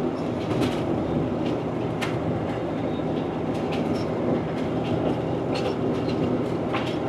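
Semi truck cruising at highway speed, heard from inside the cab: a steady drone of diesel engine and tyre noise, with scattered sharp clicks and rattles.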